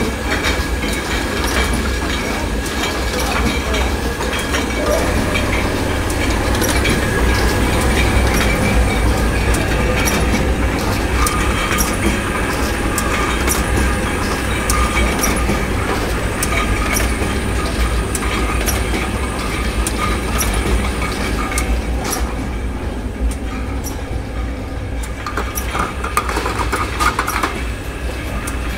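Mobile wine bottling line running: a steady machine hum with a few steady high tones over it, and quick clicks and clinks of glass bottles moving along the conveyor through the filler and capper.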